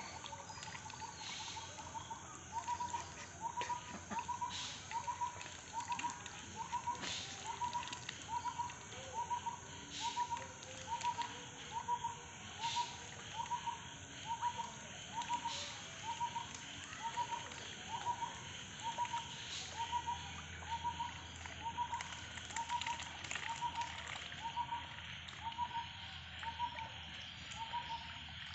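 A bird calling: one short note of the same pitch repeated evenly, a little over once a second, over a steady background hiss with occasional splashy clicks.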